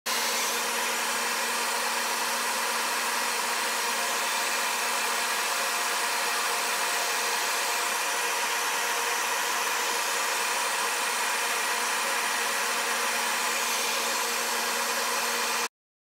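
CNC router running while a drag knife cuts cardboard: a steady motor-and-air whir with a faint hum, unchanging throughout, that cuts off suddenly near the end.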